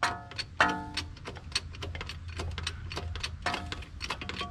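Metal clinks and ticks from steel tools and suspension parts being handled, a few of them ringing briefly. The loudest ringing clinks come at the start and about half a second in, with more near the end.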